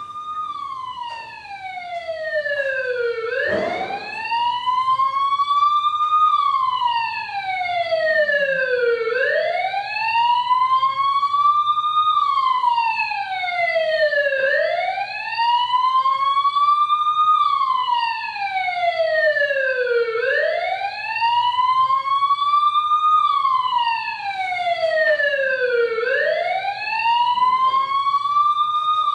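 Emergency vehicle siren wailing, its pitch slowly rising and falling about every six seconds, played as a sound effect for a traffic accident scene. A single knock sounds about four seconds in.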